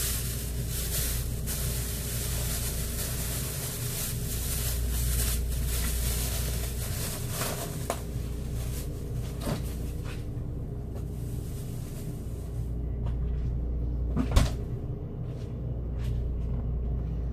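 Kitchen handling sounds: a plastic produce bag rustling and crinkling over the first several seconds, then scattered knocks and clicks of things being handled at the counter, the loudest a single sharp knock about fourteen seconds in. A steady low hum runs underneath.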